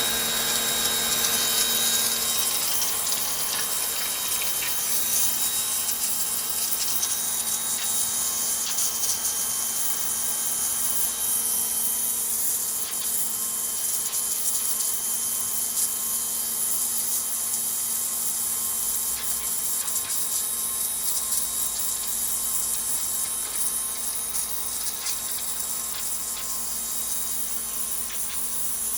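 Portable electric pressure washer running: a steady motor hum with the hiss of the water spray.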